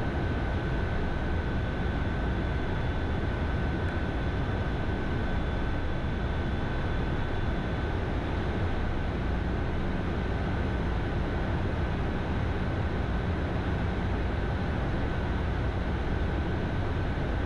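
Steady cabin noise of an Embraer Phenom 300 twin-engine jet in the climb: an even rush of airflow and engine noise with a thin, constant high whine running through it.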